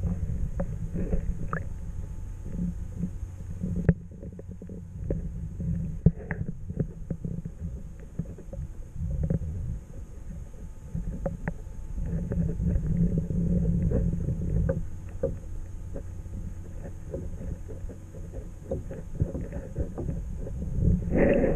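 Water lapping and moving against a kayak hull and an underwater camera housing, heard from just below the surface: a muffled low rumble with scattered sharp clicks and knocks, the loudest about 4 and 6 seconds in, and a louder splashy burst at the very end.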